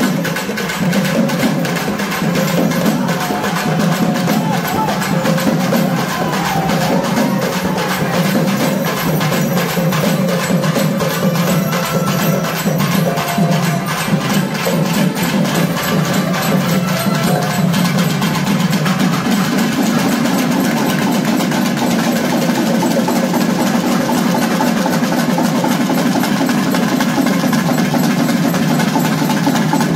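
A Tamil naiyandi melam band playing for dancing: drums beating a fast, steady rhythm, with a wavering melody line over them in the middle part.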